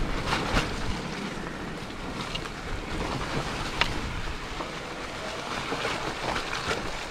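Mountain bike tyres rolling through a wet, muddy, slick stretch of trail: a steady rushing noise with wind on the microphone and scattered knocks and clicks from the bike over rough ground.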